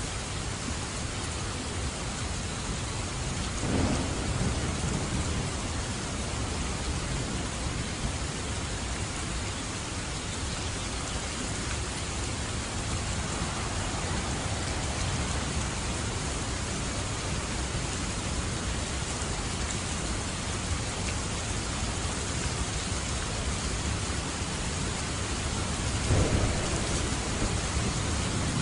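Steady rain falling, with low rumbles of thunder swelling up about four seconds in and again near the end.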